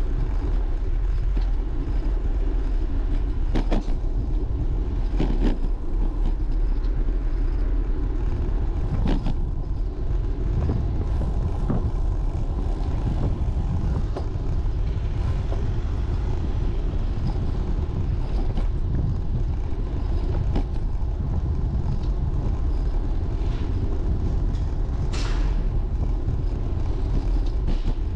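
Wind rushing over a cyclist's microphone mixed with street traffic during a bike ride, a steady low rumble. Now and then there is a brief knock, and a short hiss near the end.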